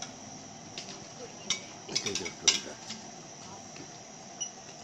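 Spoon and fork clinking against a crêpe pan on a tableside réchaud, a few sharp clinks from about one and a half seconds in, the loudest about two and a half seconds in, over a steady high-pitched tone and faint background chatter.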